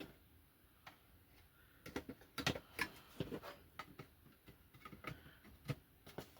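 Irregular faint clicks and taps of small Xbox 360 E disc drive parts being handled and fitted during reassembly.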